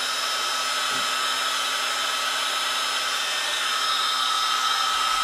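Electric heat gun running steadily: a fan hiss with a faint steady whine. It is held on painted sheet metal to heat and soften the old paint for stripping.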